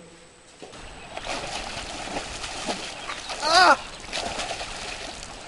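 Water splashing as a swimmer thrashes about in a lake, starting under a second in, with a man's short shout of "Ah!" about three and a half seconds in.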